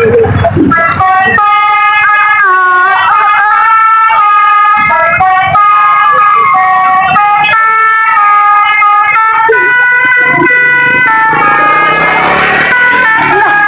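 Bus 'telolet' basuri musical horn playing a tune: chords of several horn tones stepping from note to note about every half second to a second. A noisy rush swells beneath it near the end.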